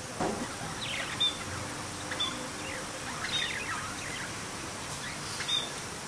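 Budgerigars chattering: a continual run of quick chirps and squeaky warbling notes, broken by short high peeps every second or so, over a steady background hiss.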